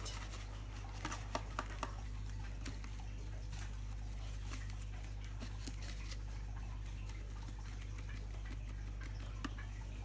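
Paintbrush mixing thick paint in a plastic tub: light taps and clicks of the brush against the tub, with a few sharper clicks a second or two in, over a steady low hum.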